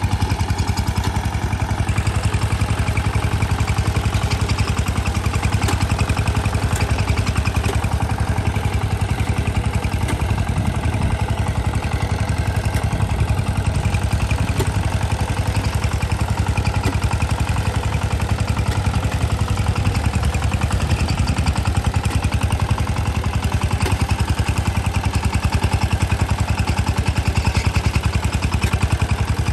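Two-wheel power tiller's single-cylinder diesel engine running steadily with a fast, even chugging, while the machine is worked through deep, wet paddy mud.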